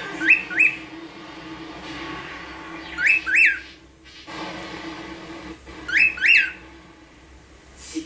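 Female pearl cockatiel giving a wolf whistle three times, about three seconds apart. Each whistle is two quick high swoops, rising and falling.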